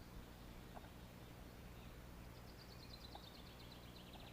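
Quiet open-air ambience with faint bird song. A rapid trill of high, evenly repeated notes comes in about three seconds in.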